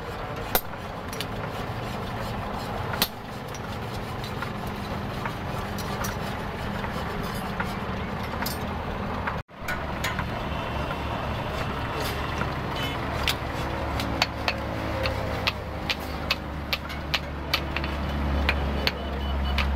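Hand hammer striking red-hot truck leaf spring steel on an anvil, sharp blows about two a second in the second half, with a few single taps before. Under it runs a steady low rumble of road traffic that swells near the end.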